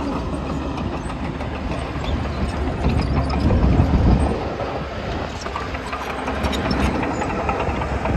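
Diesel engine of a tracked earthmoving machine running under load as it pushes soil to level the ground, with its steel tracks clanking and rattling. The engine swells louder about three to four seconds in.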